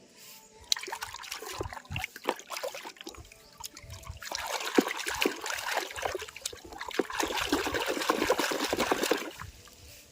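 Water trickling and splashing, with many small clicks. It gets louder and busier about four seconds in and stops shortly before the end.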